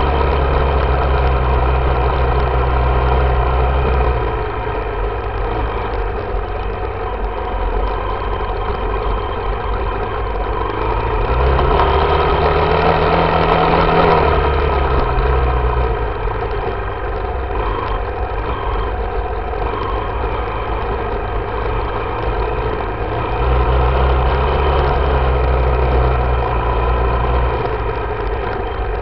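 Yamaha YZ dirt bike engine running under the rider at trail speed, its revs and loudness rising and falling with the throttle: it pulls harder for a few seconds about a third of the way in and again near the end, easing back in between.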